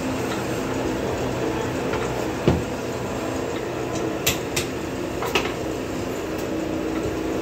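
Steady hum of workshop machinery, with a loud metal clank about two and a half seconds in and a few sharp metal clinks a couple of seconds later as a hydraulic cylinder's piston rod is handled.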